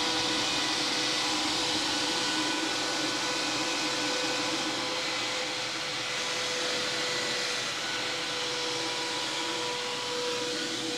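EZDIY-FAB 120 mm, 4000 RPM, 200 CFM cooling fan running in the open with no enclosure around it: a steady whine with overtones over a loud rush of air.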